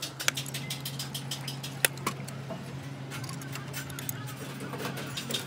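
Light metallic clicks and taps of small metal parts and tools being handled, with two sharper clicks, one just after the start and one about two seconds in, over a steady low hum.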